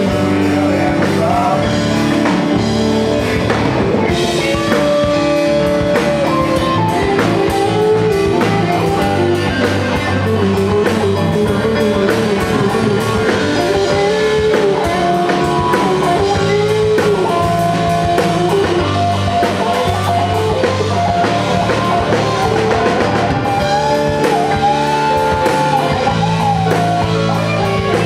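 Rock band playing live: electric guitar, bass, keyboards and drum kit, loud and steady, with a melody line bending in pitch over the top.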